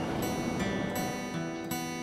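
Background music with a run of plucked notes, several in quick succession in the second half.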